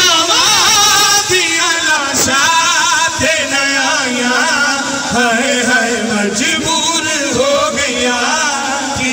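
A man singing a noha, a Shia mourning lament, into a microphone over a loudspeaker system: one long, wavering, ornamented vocal line.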